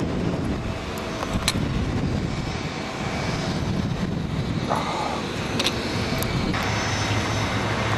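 Distant jet airliner engines rumbling steadily across the airport, with a few light clicks.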